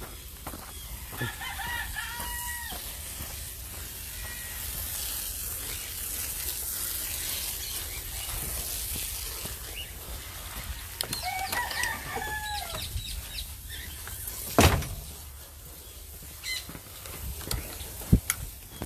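A rooster crowing twice, about a second in and again about eleven seconds in, each crow a held call that drops at the end. A sharp knock comes about fourteen and a half seconds in.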